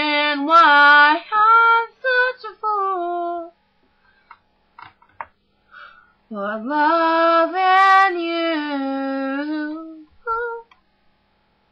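A female voice singing a pop chorus unaccompanied: a phrase of held notes, a pause of a few seconds, then a second long held phrase.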